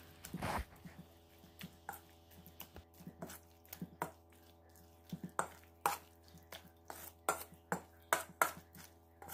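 Metal spoon stirring a thick egg-and-mashed-eggplant batter in a stainless steel bowl, clinking and scraping against the bowl in irregular knocks about two a second.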